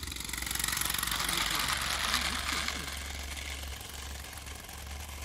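Garden-scale model train running through a tunnel and out onto the track, its wheels rumbling on the rails over a steady low hum. Voices can be heard in the background.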